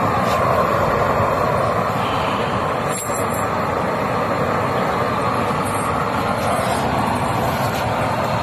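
Improvised used-oil stove burner running with a steady rushing noise, an electric blower forcing air into the flame. A few faint clicks come about three seconds in.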